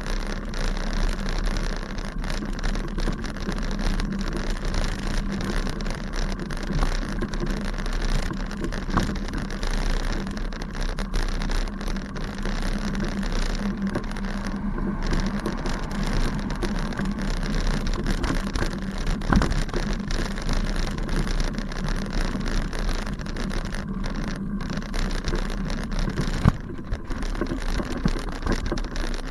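A bicycle riding over a grassy path: a steady rumble with a constant crackly rattle from the tyres and the bike, and one sharper knock near the end.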